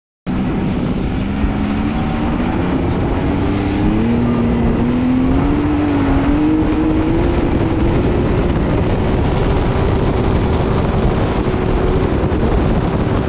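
Can-Am Maverick X3 XRC Turbo RR's turbocharged three-cylinder engine running as the side-by-side drives slowly over dirt, its pitch climbing gradually, over a steady rush of wind and dirt noise. The sound cuts in abruptly just after the start.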